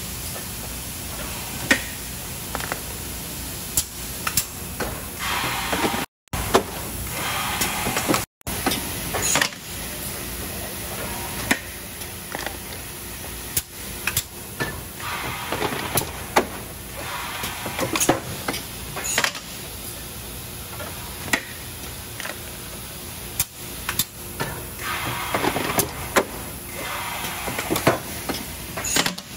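Automated plastic thermoforming and trimming machinery running. A steady mechanical din is broken by frequent sharp clicks and clanks, and a longer swell of rushing noise comes about every ten seconds as the machine cycles.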